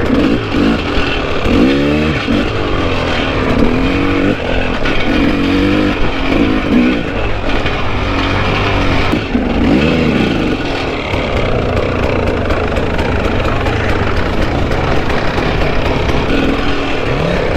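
Two-stroke KTM enduro motorcycle engine on the move, revving up and falling back again and again over the first ten seconds or so, then running more steadily, with a fresh rev near the end.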